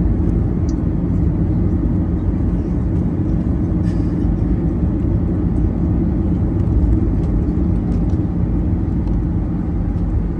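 Steady low rumble inside the cabin of a Boeing 737-800 taxiing: its CFM56 engines at low power and the wheels rolling on the taxiway, with a steady hum under it.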